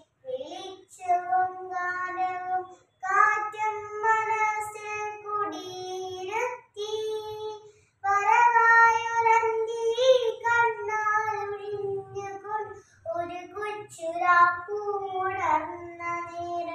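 A young girl singing a Malayalam poem in the chanted style of a kavitha recitation, unaccompanied, in long held phrases with short breaks between them.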